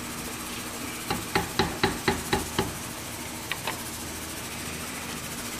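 Wooden spoon knocked against the rim of a metal cooking pot to shake it off after stirring: a quick run of about seven sharp taps, then two more a second later.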